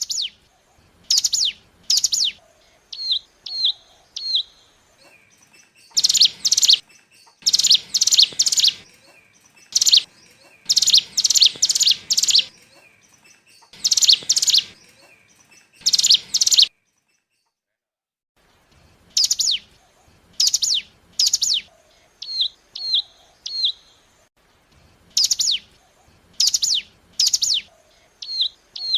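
Ciblek gunung lure recording: loud, sharp, high chirps that sweep down in pitch, delivered in quick strings of two to five, mixed with softer short hooked notes. The strings come in runs, with a pause of about two seconds past the middle.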